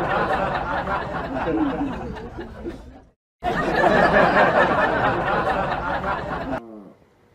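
Dubbed-in audience laughter, a laugh track: it fades, cuts out briefly about three seconds in, starts again at full loudness and cuts off shortly before the end.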